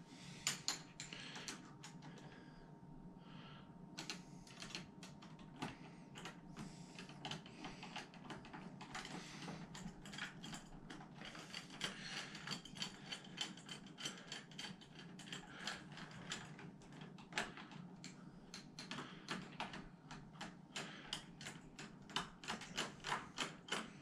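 Screwdriver turning the mounting screws of an interior door knob: a run of small, faint metal clicks and ticks that comes faster and louder in the last couple of seconds.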